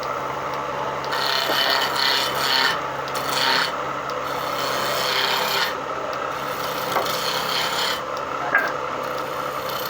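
Continuous rough rasping and scraping of a tool shaping a wooden leg for a fridge stand, coming in uneven stretches over a steady low hum.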